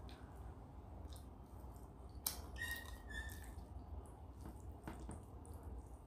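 Faint wet squishing and soft clicks of fingers mixing rice and dal on a metal plate, over a steady low hum. A little after two seconds there is a sharp click, followed by a short high chirp in two parts.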